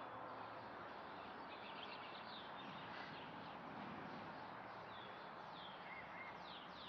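Faint birds chirping in quick runs of short, high, falling notes over a steady outdoor background hiss.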